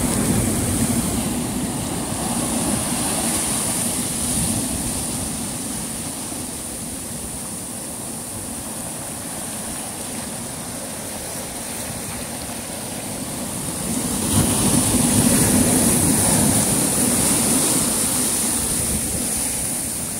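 Sea surf rushing on the shore, swelling near the start and again from about 14 seconds in.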